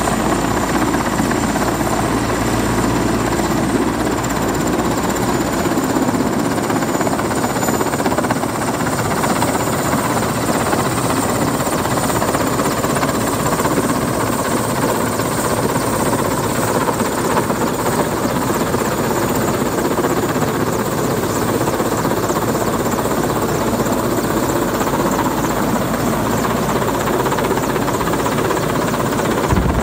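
Mil Mi-8-family twin-turbine heavy-lift helicopter hovering low overhead, its main rotor and turbines running loud and steady while it holds an underslung load.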